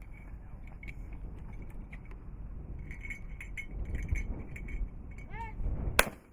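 A short shouted call from the trap shooter, followed about half a second later by a single shotgun shot, which is the loudest sound here. Before them, wind rumble with faint scattered clicks.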